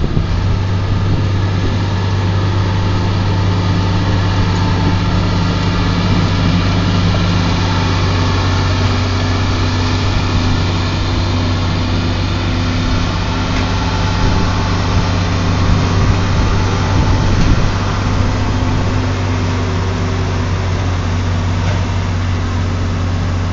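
Crawler bulldozer's diesel engine running steadily as the dozer pushes and levels soil and rock with its blade, slightly louder around two-thirds of the way through.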